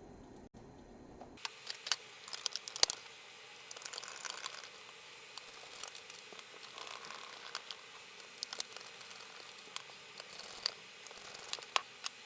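Hands handling small parts at a workbench: irregular light clicks, taps and crinkling, starting about a second and a half in, with the sharpest click about three seconds in.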